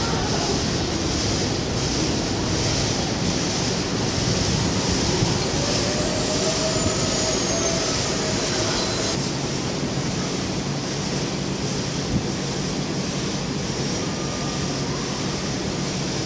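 Distant R142 subway train running on the elevated line, a steady rumbling noise with a faint thin whine rising and falling near the middle.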